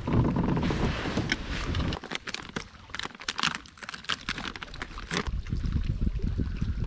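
Wind buffeting the microphone, with a run of sharp crinkling and crackling in the middle as a small plastic packet is handled.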